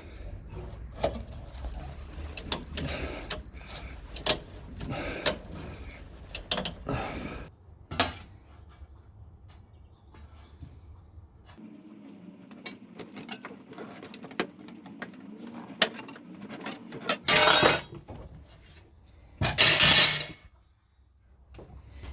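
Metal tools and parts clinking, tapping and knocking on sheet metal during bodywork repair, with two short, loud, hissing bursts near the end.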